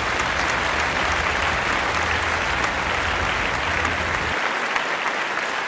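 Applause, steady clapping from many hands, with a low rumble underneath that stops about four seconds in.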